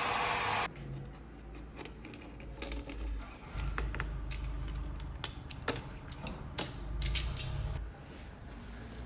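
A ventilation fan's steady rushing cuts off abruptly under a second in. It is followed by scattered sharp clicks and light knocks of parts being handled, over a low rumble.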